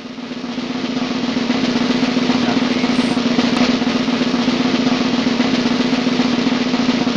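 3.5-inch floppy disk drive reading a diskette as it loads: a loud, fast, steady buzzing rattle with a low hum underneath, building up over the first second.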